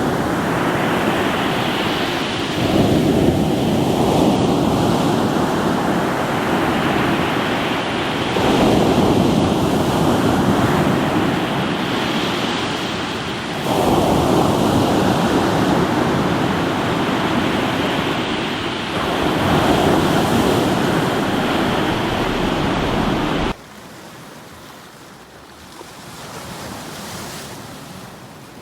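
Waves breaking on a rocky shore, the surf surging in swells about every five or six seconds. Near the end the sound cuts suddenly to a much quieter wash.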